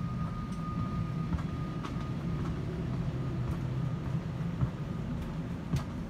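Steady low hum of the Embraer E190-E2's cabin air system, with a faint steady high tone and a few light scattered clicks.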